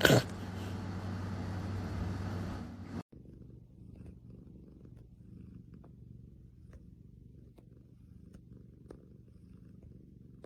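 A steady humming drone cuts off about three seconds in. A domestic cat then purrs softly, a low rumble with faint clicks.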